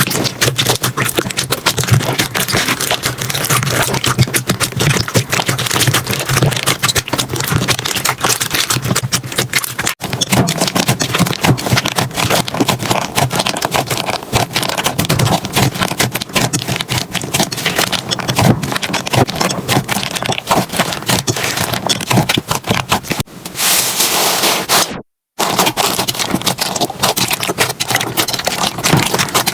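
Slime being squeezed, stretched and poked by hand, giving a dense run of crackling, popping clicks. The texture changes about ten seconds in and again near twenty-three seconds, with a brief drop-out soon after.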